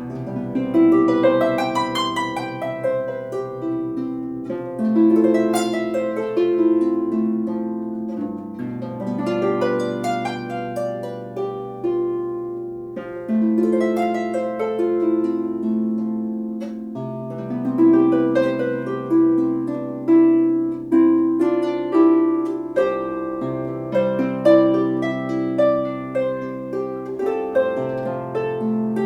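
34-string Celtic lever harp played solo in flowing arpeggios, plucked notes ringing over held bass notes that change every few seconds.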